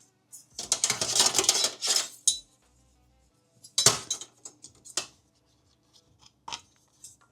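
Small hard parts and tools being handled on a workbench during a desktop computer repair: a dense clattering rattle lasting about a second and a half, then a few separate sharp clicks.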